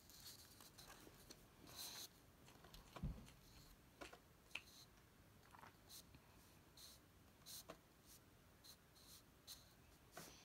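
Faint, short scratches and light taps of a pencil and hands against paper on a tabletop, with one soft knock about three seconds in.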